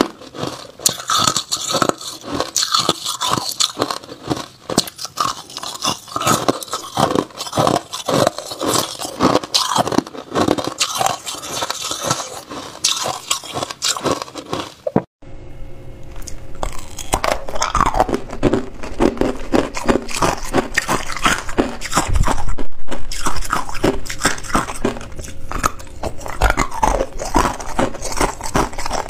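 Hard ice cubes being bitten and chewed, a rapid run of crisp crunches, picked up close by a clip-on microphone. The crunching breaks off for a moment about halfway, then carries on.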